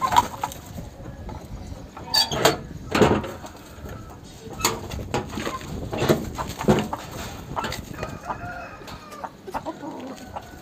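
Aseel roosters clucking, with a series of sharp knocks and scuffs through the first seven seconds and short wavering calls near the end.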